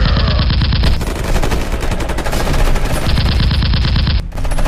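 Rapid machine-gun fire sound effect from a cartoon action scene: a fast, unbroken run of shots over a low rumble, breaking off for a moment just after four seconds in before starting again.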